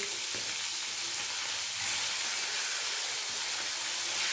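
Pomfret pieces frying in hot oil in an aluminium kadai, sizzling steadily, while a spatula turns a piece over. The sizzle swells briefly about two seconds in.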